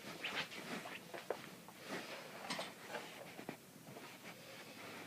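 Quiet, irregular footsteps and handling noise indoors: a handful of soft clicks and rustles, with no alarm horn sounding.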